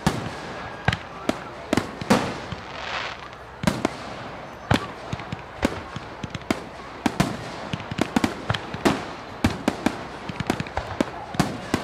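Aerial fireworks exploding: an irregular run of sharp bangs and pops, several a second at times, with a brief hissing crackle between two and three seconds in.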